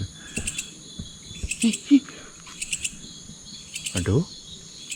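Night insects, crickets or similar, with a steady high buzz and short pulsed chirps recurring roughly once a second. A brief low call sounds about two seconds in, and a voice calls out once near the end.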